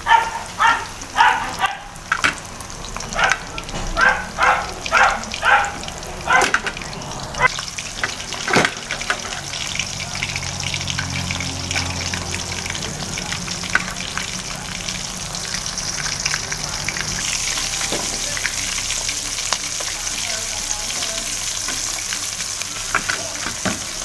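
Chicken necks deep-frying in hot oil in a wok: a steady sizzle. Over the first seven seconds a run of about a dozen short, loud sounds stands out, as a utensil turns the pieces. The sizzle grows brighter and more hissing from about two-thirds of the way in.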